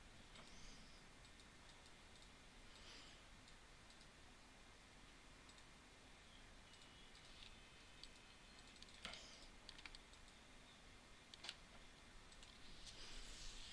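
Near silence: faint room hiss with a few soft computer keyboard clicks.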